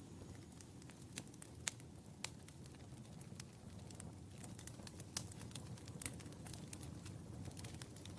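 Wood fire burning in a fireplace: a low steady rumble of the flames with irregular sharp crackles and pops from the burning logs.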